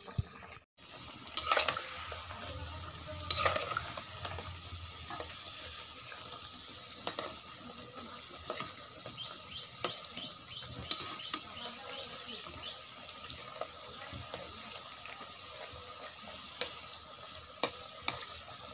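Nimki dough pieces deep-frying in hot oil in a metal wok, with a steady sizzle. A metal spatula turning them scrapes and clinks against the wok now and then, loudest twice in the first few seconds.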